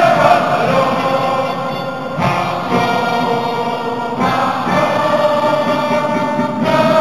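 A huge stadium crowd singing a national anthem together in long held notes, the melody moving to a new phrase every couple of seconds.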